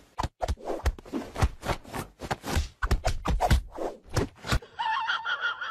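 A hand rapidly patting a cat's furry belly: quick soft thumps, about four or five a second. The patting stops near the end and a brief pitched sound follows.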